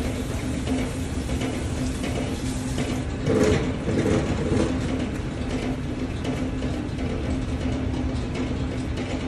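Electric stand mixer running steadily with a hum from its gear motor, creaming butter and sugar. A brief louder noise comes about three and a half seconds in.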